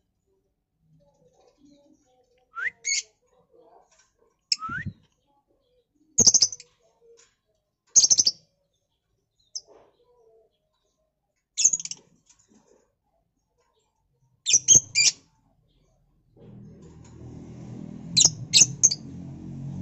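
Caged masked lovebirds giving sharp, high chirps, singly or in quick groups of two or three every couple of seconds, some sweeping quickly upward. About three-quarters of the way through, a low steady hum comes in underneath.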